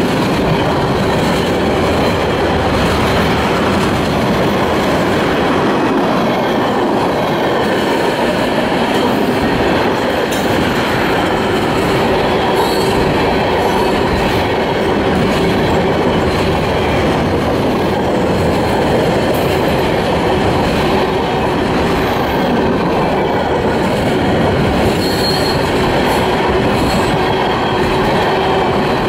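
Freight cars of a CSX mixed freight train, tank cars and covered hoppers, rolling past close by: a steady loud rumble and clatter of wheels on the rails, with brief wheel squeals now and then.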